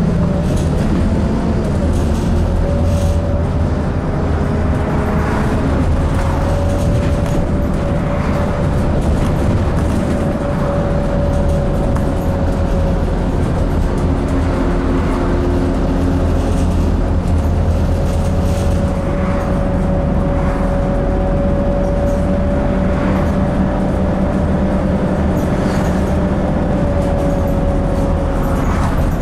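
Scania N230UD double-decker bus heard from inside the passenger saloon while driving: the 9.3-litre five-cylinder diesel drones steadily under a steady whine that drifts slightly up and down with speed.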